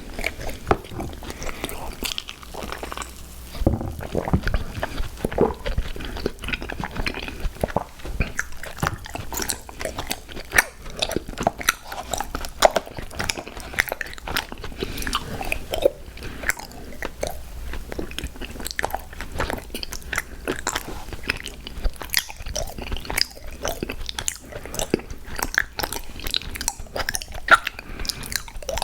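Close-miked mouth sounds of a person eating sweets: continuous biting and chewing, full of small wet clicks and crisp crunches.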